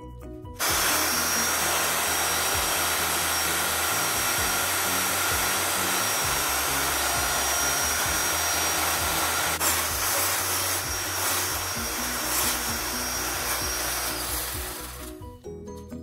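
Electric hand mixer switched on about half a second in, running steadily with a thin high whine as its beaters whip table cream in a glass bowl, then stopping near the end. Background music plays underneath.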